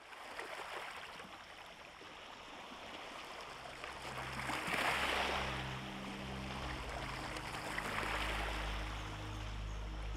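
Running water, like a flowing stream, that swells louder twice, with low sustained music notes coming in underneath a few seconds in.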